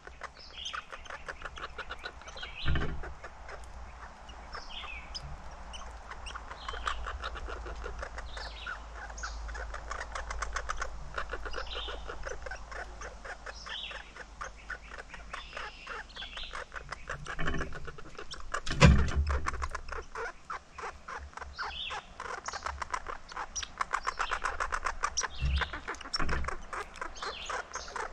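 Small woodland birds chirping in short calls, over a fast, dense ticking. A few low thumps come through, the loudest about two-thirds of the way in.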